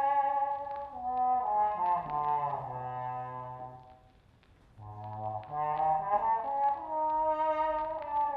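Trombone playing slow, held jazz-style notes over a backing track of sustained chords. The music thins out and falls almost silent for under a second a little past the middle, then swells back in.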